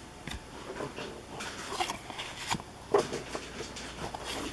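Hockey trading cards being handled: light irregular taps, clicks and rustles as cards are flipped over and set against the tabletop.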